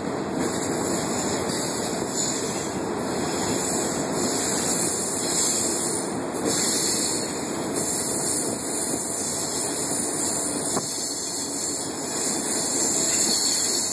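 Passenger train running along the track, heard from inside the car: a steady rumble and rushing noise of wheels on the rails and air moving past the car.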